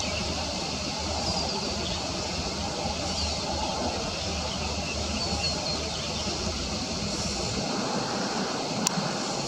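Steady outdoor rumble and hiss, with faint short high-pitched chirps now and then and a sharp click near the end.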